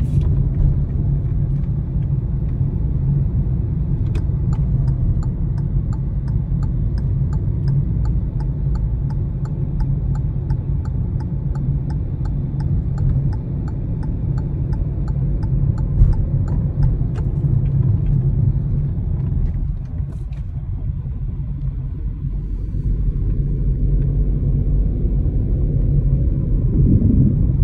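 Steady low road and engine rumble heard inside a moving car's cabin. Through the middle, a quick, regular, faint ticking runs for about thirteen seconds.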